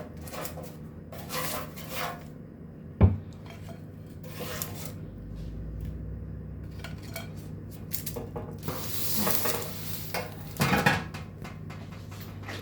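Kitchen utensils and dishes being handled: scattered scraping and clinking, with a sharp knock about three seconds in.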